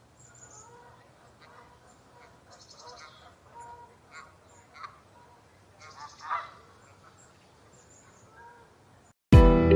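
Canada geese honking now and then, short separate calls at a low level, the loudest about six seconds in. Music starts abruptly near the end.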